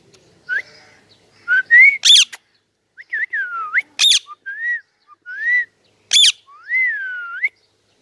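Indian ringneck parakeets calling: a string of short whistled notes that swoop up and down, broken by three loud, sharp screeches about two seconds apart.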